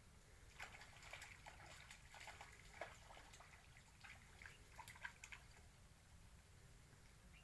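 Faint water dripping and trickling: a scatter of small drips and splashes in the first five seconds or so, then only a low hiss.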